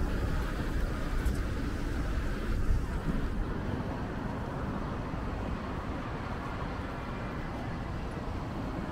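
Road traffic on a city street: cars and a van passing as a steady rumble. The rumble is a little louder for the first three seconds or so, then eases.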